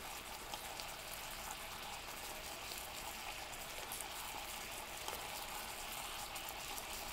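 Teriyaki marinade of soy sauce, vinegar and sake simmering around a chicken thigh in a frying pan: a steady, gentle bubbling with many small pops as the sauce reduces toward a glaze.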